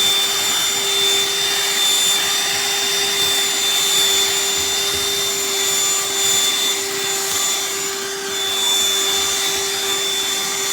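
BLACK+DECKER Dustbuster cordless handheld vacuum running steadily: a constant hum and a high motor whine over the rush of air as it sucks up debris.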